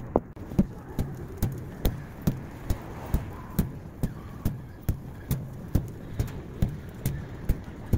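Sharp, evenly spaced taps, a little more than two a second, over a steady low rumble of street traffic.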